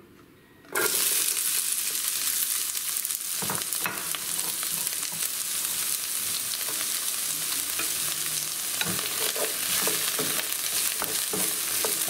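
Chopped onion hitting hot oil in a frying pan and sizzling over medium heat, the sizzle starting suddenly about a second in and staying steady. Near the end a wooden spoon stirs the onion, adding light scraping strokes.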